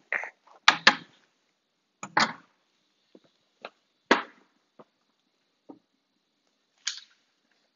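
Kitchen items being handled and set down: a series of separate sharp knocks and clacks, the loudest pair about a second in and others around two and four seconds, with a few fainter ticks and a short rustle near the end.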